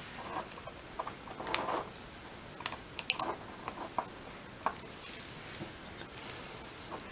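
A small scraper scraping excess hardened lip balm off the top of a filled lip balm tube tray, making short scrapes and scattered light clicks and taps.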